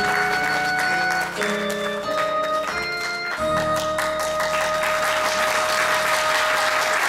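Closing bars of an enka song's backing music, settling about halfway through onto one long held final note, with an audience applauding throughout.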